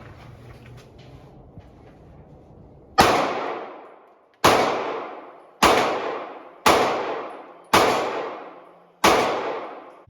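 Six shots from a 9mm Glock 43X pistol, starting about three seconds in and coming roughly a second apart, each ringing out as it fades.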